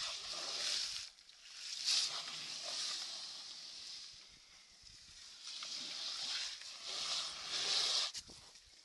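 An elephant's hide scraping and rubbing against the trail camera at close range, heard as several rough, swelling scrapes. The loudest come about two seconds in and again near the end.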